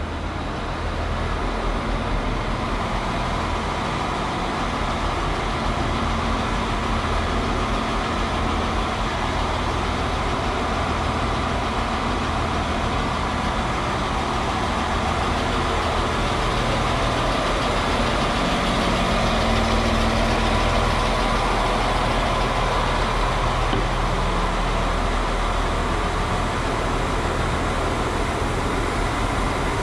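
CAF two-car diesel multiple unit idling at the platform: a steady low engine hum under an even mechanical hiss, growing slightly louder in the first seconds.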